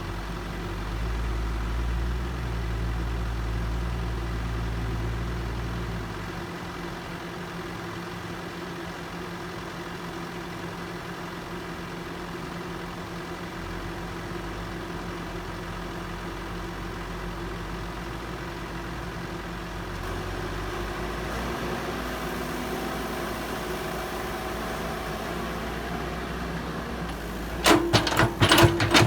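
Heavy construction machine's diesel engine running steadily, with more low rumble for the first six seconds before it settles lower. Near the end comes a quick run of loud clattering knocks.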